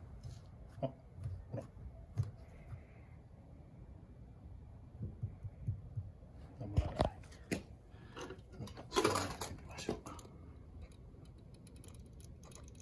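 Scattered clicks and knocks of a hand working the chrome door handle of a locked Toyota Alphard, with a sharper knock about seven seconds in and a brief rustle near nine seconds. No unlock sound follows: the smart key shut in a steel can is not picked up, and the door stays locked.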